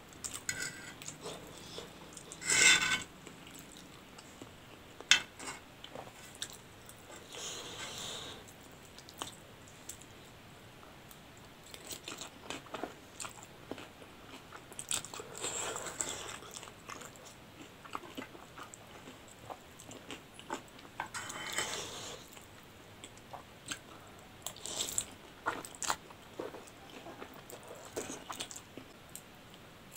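Close-up eating sounds of noodles and crispy fried wonton skins: crunching bites, chewing and slurps of noodles, at irregular intervals, with the loudest crunch about three seconds in.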